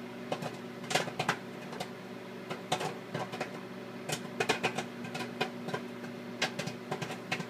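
Popcorn kernels popping in a bag inside a running microwave oven: sharp pops at uneven intervals, several a second, over the oven's steady hum.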